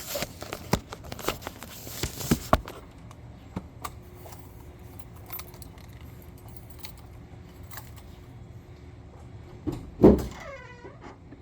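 Keys jingling amid clicks and knocks of handling over the first couple of seconds. About ten seconds in comes a loud thump, followed by a short squeak falling in pitch.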